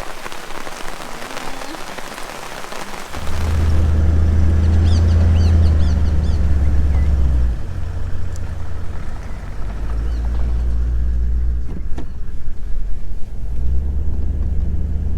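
Rain falling steadily for about three seconds, then a four-wheel-drive vehicle's engine comes in suddenly as a loud, low, steady drone that shifts in pitch several times as it drives.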